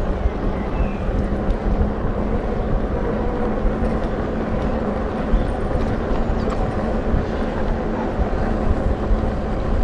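Wind rushing over the microphone of a moving bicycle, mixed with the rumble of its tyres on an asphalt path, with a faint steady hum underneath.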